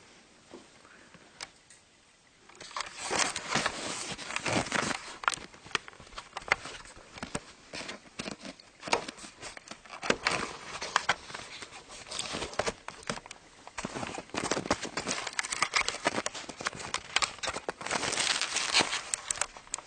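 Irregular rustling and crackling close to the microphone, like the recording device being handled and rubbed, starting about two and a half seconds in and continuing in uneven bursts of clicks and scrapes.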